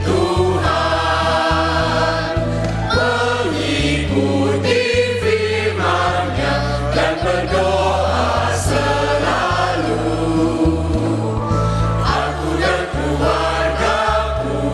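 Mixed choir of adults and children singing a hymn in Mandarin in harmony, over an instrumental accompaniment that holds low bass notes.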